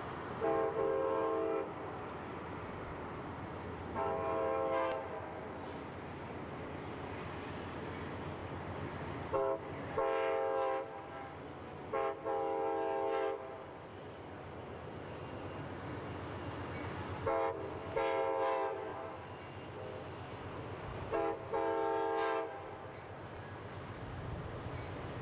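Diesel locomotive air horn sounding a series of about six steady chord blasts, most about a second long and some with a short toot just before, over the continuous rumble of the moving train.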